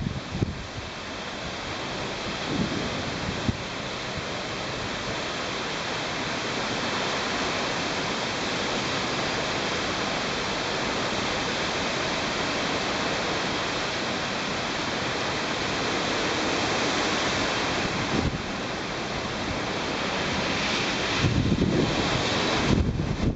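Heavy typhoon surf rushing and breaking on the shore in a continuous roar that swells and ebbs. Strong wind buffets the microphone in gusts, most of all near the start and near the end.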